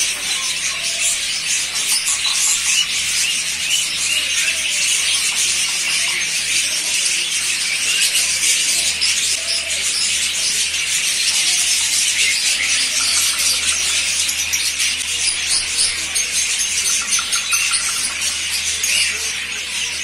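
A dense, continuous chorus of many caged lovebirds and cockatiels chattering and screeching at once, with no pause. A low steady hum runs underneath.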